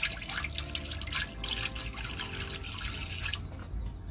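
Water pouring in a thin stream into an empty stainless steel pot, splashing on the metal bottom. The pouring stops about three seconds in.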